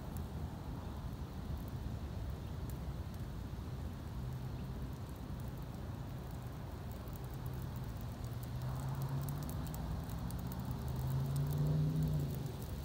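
Riding lawn mower burning: fire crackling in sparse sharp ticks over a low rumble. A low droning hum builds through the second half and is loudest shortly before the end.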